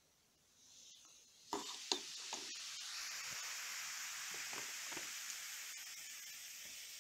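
Baking-soda water poured into citric-acid water fizzing hard as carbon dioxide foam rises in the glass: a steady hiss of popping bubbles, starting with a few light taps about a second and a half in and gradually dying down.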